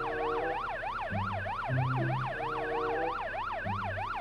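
Electronic police-car siren, a fast up-and-down wail repeating about four times a second, over background music with low held notes.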